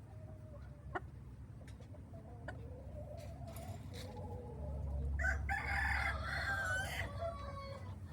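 Rooster crowing once, a long call of about two seconds a little over halfway through, with softer low clucking calls before it.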